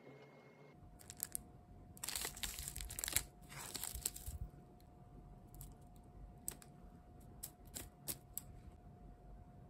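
Crinkling and rustling of a clear plastic sticker pack as a strip of holographic glitter nail sticker film is pulled out, loudest in the first half, followed by a few sharp snips of small scissors cutting the sticker strip.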